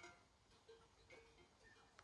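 Sheep bells clinking faintly and irregularly as a flock grazes, with a sharper clink at the start and scattered short rings after.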